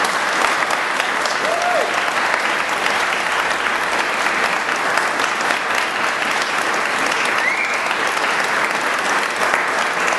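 A roomful of guests clapping steadily, the claps blending into a dense, even applause.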